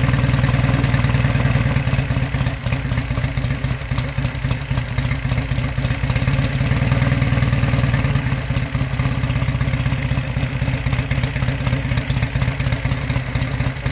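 1952 Royal Enfield motorcycle engine running at a steady idle, firing evenly. Its overhead valve gear and top end have just been rebuilt and still need a little adjustment.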